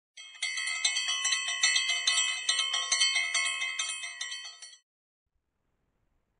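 Many high bells ringing together, re-struck about three or four times a second, then stopping suddenly about three-quarters of the way through.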